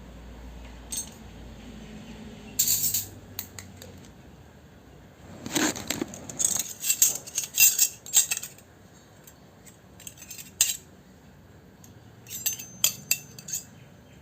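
Small toy kitchenware pieces clinking and clattering as they are handled and set down. There are short clicks at first, a longer run of clatter midway, and a few more clicks near the end.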